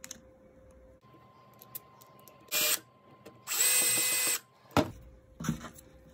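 Cordless drill-driver running a small screw into a plastic plug casing, tightening the plastic safety collar down. It runs in two short bursts with a steady whine, the second about a second long, then a sharp click.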